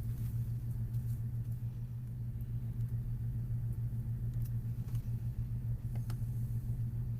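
A steady low hum with a few faint, short clicks over it.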